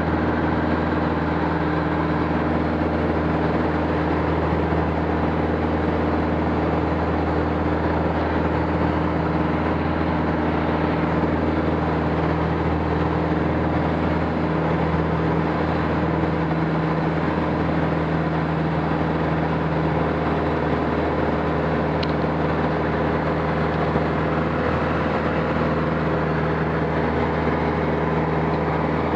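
Aircraft engine running steadily in flight, a constant low drone with a noisy rush over it.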